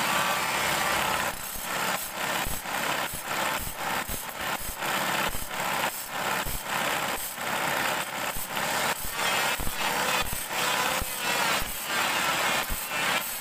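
Bandsaw blade teeth being sharpened one after another against a spinning disc on a motor-driven arbor. It grinds continuously for about the first second, then goes in short rasping strokes, about one or two a second, over the steady running of the motor.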